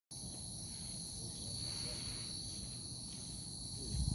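Steady high-pitched chorus of insects, an even buzz that holds through without pause. A brief low rumble comes in near the end.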